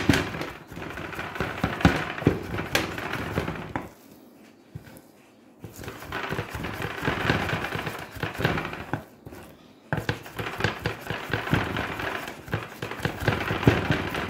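Chef's knife chopping raw chicken into tiny pieces on a wooden cutting board: a fast run of knocks of the blade on the board, broken by two short pauses, about four seconds in and about nine seconds in.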